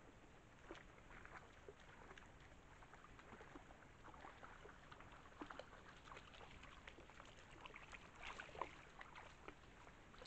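Faint, irregular crackling and rustling of an animal moving through grass and leaf litter, a little busier about eight seconds in.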